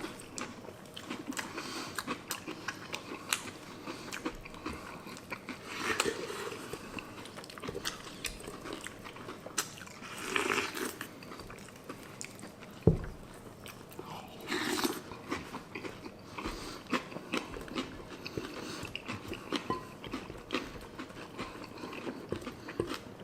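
Close-up chewing and crunching of a mixed breakfast cereal (Fruit Loops, Rice Krispies, Corn Pops and Cinnamon Toast Crunch), with many small crunches and a few louder mouthfuls. About 13 s in there is a single dull knock.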